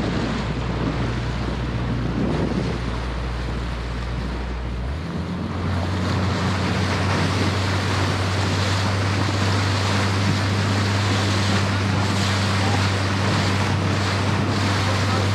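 Speedboat engine running steadily, mixed with wind buffeting the microphone and water rushing past the hull; the engine note steps up about five seconds in.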